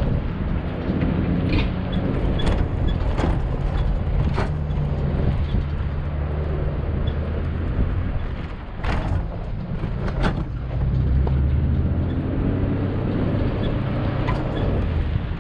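Off-road 4x4 vehicle's engine running at low speed on a trail, with about six sharp knocks and clunks scattered through, mostly in the first half.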